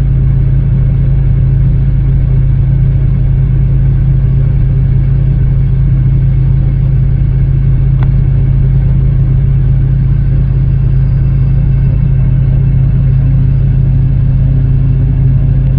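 Diesel engine of a farm machine running steadily at a constant speed, with a strong low hum, and one brief click about halfway through.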